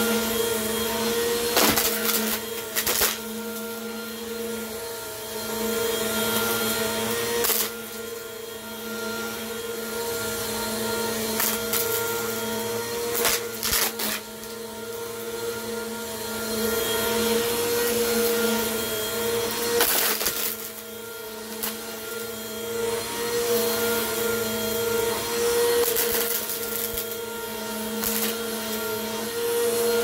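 Bissell PowerForce Compact upright vacuum cleaner running on carpet: a steady motor hum that swells and dips as it is pushed back and forth, with scattered sharp crunches and clicks as small bits of debris are sucked up.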